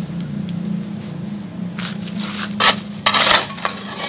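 A metal tool scraping against gritty ground as it is pried under a dried sand-cement shape stuck fast after rain, in several short, harsh scrapes in the second half. A steady low hum runs underneath.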